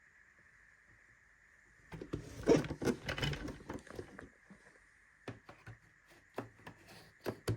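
Rustling and handling noise about two seconds in, followed by a few separate light clicks and knocks, over a faint steady high tone.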